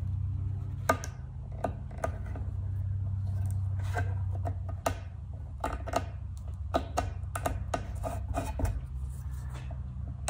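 A small hobby knife scraping and picking old putty out from under lifting wood veneer, in irregular sharp clicks and scrapes.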